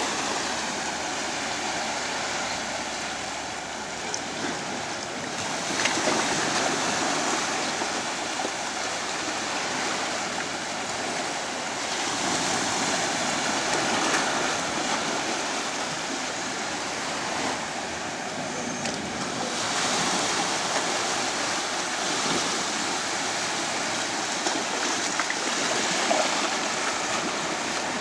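Small sea waves breaking and washing up a sandy beach: a steady rush of surf that swells and eases every several seconds.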